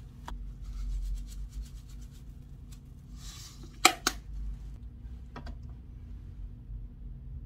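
Sesame seeds sprinkled over a dish in a pan: scattered light ticks and a short rustling hiss. A little past halfway come two sharp clicks close together, the loudest sounds, and a fainter knock follows.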